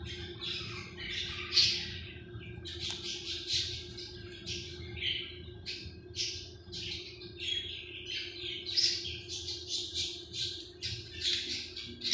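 Green-cheeked conures giving a rapid run of short, harsh squawks, several a second, getting busier in the second half.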